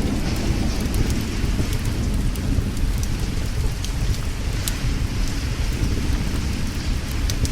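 Thunderstorm ambience: steady rain over a continuous low thunder rumble, with scattered sharp crackles and pops from a wood fire in a fireplace.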